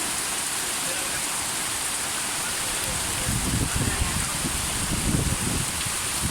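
Heavy rain falling steadily, a dense even hiss. From about three seconds in, irregular low rumbles come and go beneath it.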